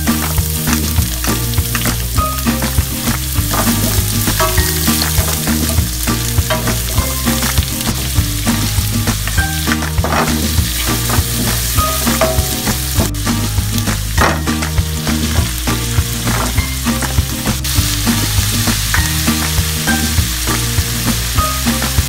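Chopped garlic, red onion and shrimp sizzling in hot oil in a nonstick pan, stirred with a wooden spatula. A steady hiss runs through, under background music with a bass line.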